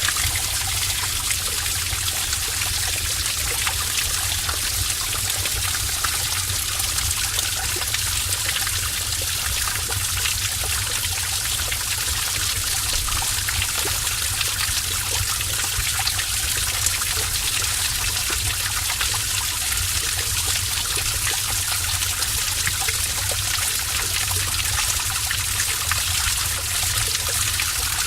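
Heavy stream of water running in a cave, a steady, unbroken rush of flowing and splashing water.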